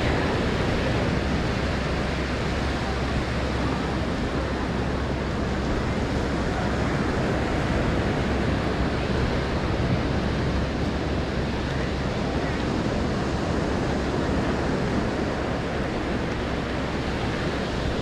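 Steady wash of ocean surf, with wind rumbling on the microphone.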